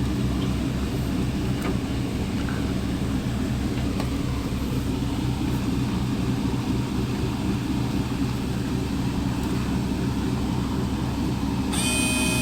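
Steady low mechanical rumble with a few faint clicks. Near the end a melody of high tones begins over it.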